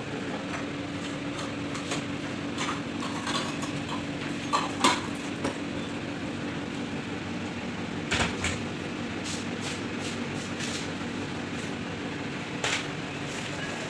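Dental chair's electric hydraulic pump motor running with a steady hum while the chair's lift is tested after its 220 VAC solenoid valve was replaced, with a few short clicks and knocks from the chair's frame.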